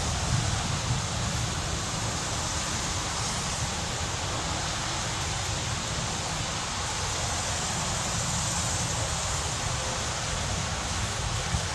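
Steady rushing noise from a SEPTA Silverliner IV electric commuter train running away along the track, with a low wind rumble on the microphone underneath.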